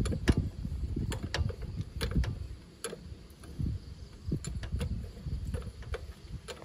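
Irregular sharp clicks and light knocks of hands handling a tractor's spin-on diesel fuel filter and its metal filter head, over low rumbling handling noise.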